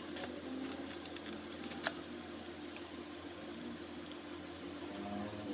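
Faint scattered clicks and taps as mango slices are laid with a knife into a plastic jelly mould, over a steady low hum.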